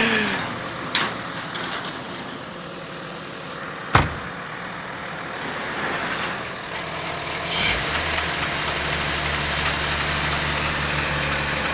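A single sharp knock about four seconds in. Near eight seconds the BMW's N54 twin-turbo straight-six starts and settles into a steady idle; this is the engine that is being replaced because of a knock.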